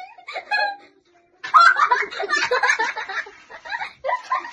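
Girls laughing: a couple of short vocal sounds, then loud giggling that breaks out about a second and a half in.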